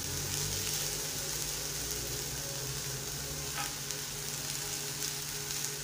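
Washed omena (small dried lake fish) sizzling in a hot pan as they dry out, a steady hiss, while a metal spoon stirs and scrapes them around the pan.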